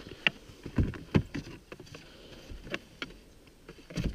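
A snowboard being set down on the side of a Ski-Doo Summit snowmobile and fastened: a handful of scattered knocks and clicks with rustling between them. No engine is running.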